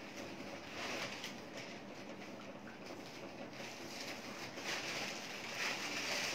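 Rustling and shuffling of clothes and packaging being rummaged through by hand, louder about a second in and again near the end.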